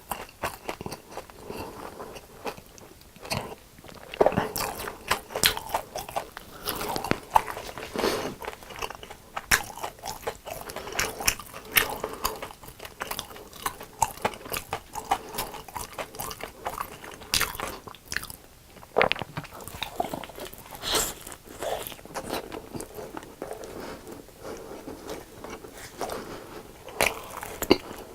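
Close-up crunching bites and chewing of crispy fried food, with sharp crackly crunches coming at irregular intervals.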